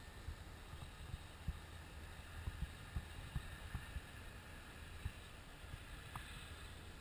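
Wind buffeting the microphone: irregular low thumps over a steady hiss.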